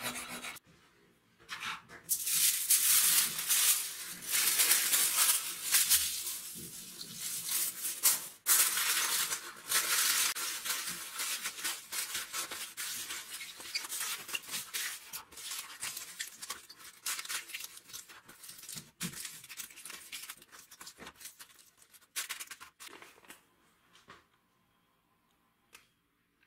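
Aluminium foil being crumpled and folded by hand into a small tray, a loud irregular crinkling that dies away a few seconds before the end.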